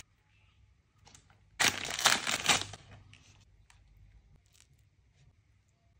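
Crisp fried chicken cutlet being pulled out of a soft bun: a crackling, tearing burst about a second long, starting about one and a half seconds in, followed by a few faint clicks.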